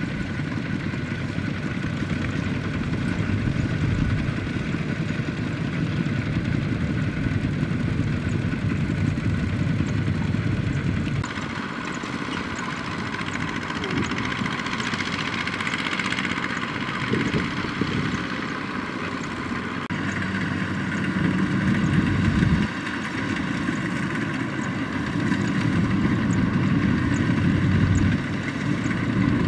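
Single-cylinder diesel engines of two-wheel walking tractors (power tillers) running under load, hauling trailers of rice sacks. The engine sound runs steadily and shifts abruptly about eleven seconds in.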